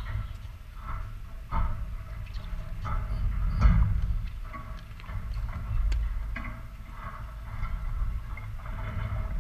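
Wind buffeting the camera's microphone: an uneven low rumble that swells and fades in gusts, with a few faint sharp knocks, the loudest about three and a half seconds in.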